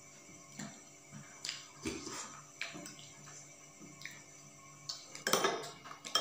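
Metal spoons clinking and scraping against ceramic bowls and steel plates during a meal, with scattered eating sounds. The loudest clatter comes about five seconds in.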